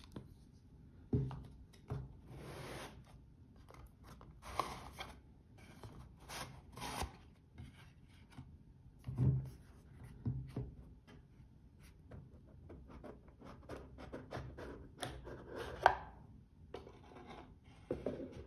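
Cardboard watch box being unpacked by hand: a paper sleeve slid off with short rubbing swishes, the box knocking dully on a wooden table, and a sharp click about sixteen seconds in as the lid is handled, with light taps and scrapes throughout.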